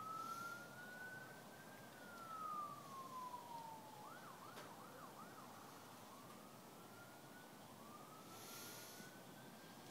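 Faint siren wailing, its pitch rising slowly and then falling. Partway through it switches briefly to a fast yelp of four quick up-and-down sweeps, then goes back to the slow wail.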